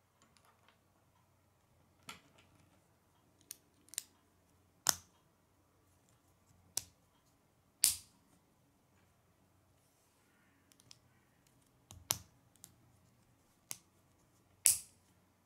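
Plastic K'nex pieces snapping together as small connectors are pressed onto a rod: about ten sharp clicks at irregular intervals, the loudest about halfway and near the end.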